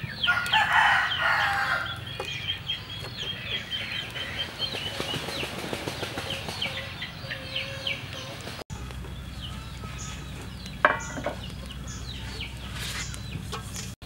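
Chickens clucking and calling, with a rooster crowing and many short bird chirps; a louder burst of calling comes about half a second in and lasts over a second.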